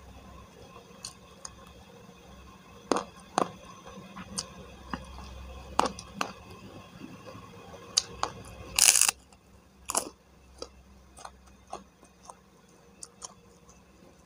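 Close-mic eating of fried chicken and rice: chewing with scattered short crunches and mouth clicks, and one louder, longer crunch about nine seconds in.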